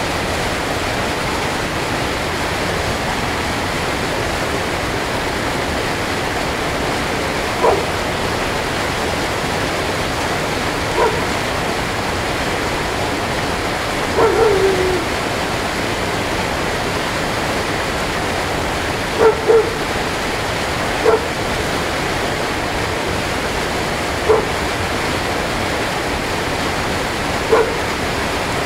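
Steady rushing of water, with a dog barking now and then over it: about eight short barks scattered irregularly, two in quick succession past the middle.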